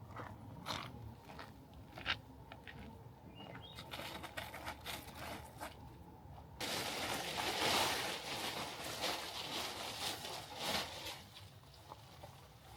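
Campfire crackling, with sharp irregular pops and snaps; about six and a half seconds in a louder steady hiss comes up under the pops and eases off near the end.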